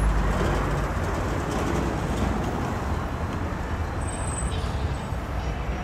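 Steady low rumble of street traffic with wind buffeting the microphone while riding a bicycle.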